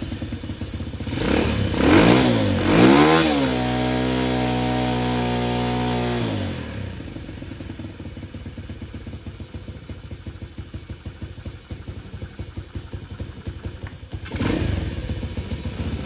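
Honda S65's small single-cylinder four-stroke engine revved up and down twice, then held at high revs for about three seconds before dropping back to a steady idle.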